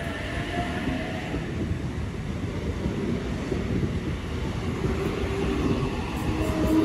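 Sydney electric passenger train running past along the platform close by: a steady rumble of wheels on rail with a faint whine that strengthens near the end.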